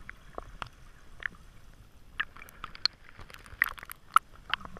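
Underwater sound picked up through a camera's waterproof housing: faint hiss with scattered, irregular clicks and small pops, the sharpest a little past halfway and again near the end.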